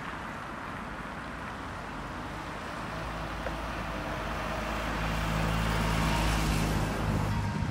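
A Volvo V70 estate car drives over the crossing and passes close by. Its tyre and engine noise builds to its loudest about six seconds in, then falls away. Near the end the level crossing's warning bell starts ringing as the red lights begin to flash.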